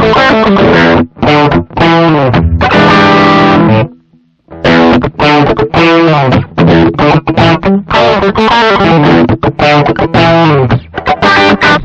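Electric guitar, a 1983 Aria Pro II, played through a Caline Orange Burst overdrive pedal (a BB Preamp clone) for a driven, crunchy tone. It plays short, choppy chord stabs and riffs, lets one chord ring, stops for half a second about four seconds in, then carries on with more stabs.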